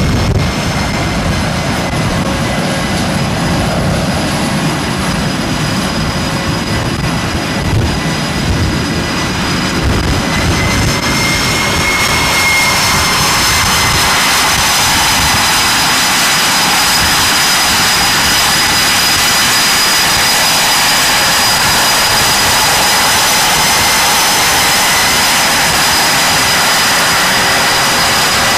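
Boeing F/A-18's twin jet engines running close by, a loud steady roar with a high turbine whine. About twelve seconds in, the low rumble eases and the sound turns higher and hissier, slightly louder and very even.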